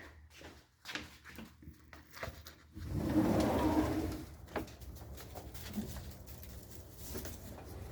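Chickens softly clucking and murmuring, with scattered light clicks and a brief, louder rustling noise about three seconds in.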